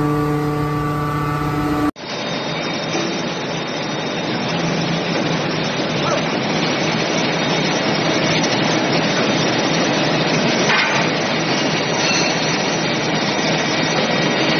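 Steady machine noise from a multi-directional hydraulic forging press and the forge floor around it. A steady pitched hum at the start cuts off about two seconds in.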